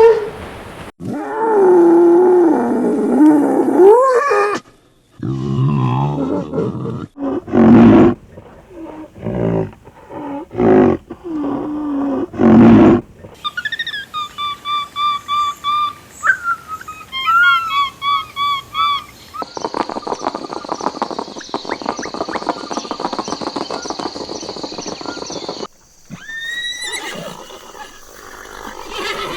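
A run of different animal calls, several separate clips cut one after another: a drawn-out call with a wavering pitch, a string of short loud calls, then repeated chirping calls.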